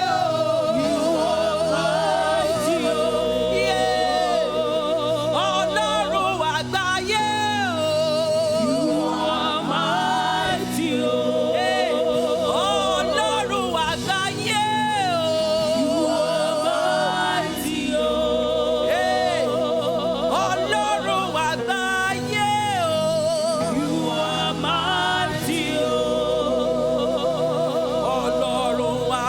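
Live gospel praise music: singers with vibrato-laden voices lead a Yoruba worship song over steady keyboard and bass chords.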